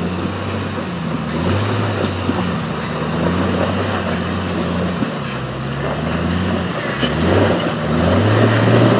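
Jeep Wrangler engine revving up and down several times under throttle as it crawls over off-road terrain.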